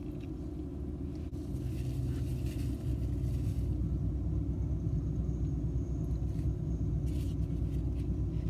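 Low, steady rumble of a motorcycle engine pulling in and idling close beside a parked car, growing louder after about a second and a half, heard from inside the car.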